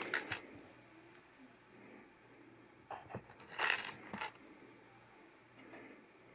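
Hard plastic LEGO pieces clicking and clattering as they are handled, in a few short clusters: one at the start and a longer run around three to four seconds in.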